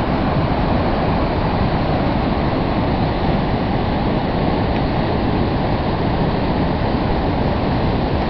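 Loud, steady rushing of whitewater rapids pouring through and around boulders.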